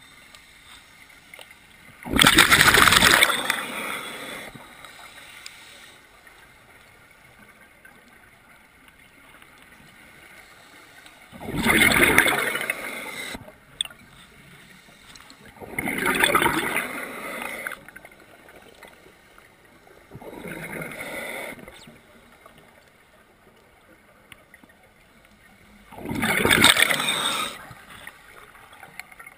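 Scuba diver's regulator breathing underwater: five loud gurgling rushes of exhaled bubbles at irregular spacing, the fourth softer and shorter, with quiet stretches between.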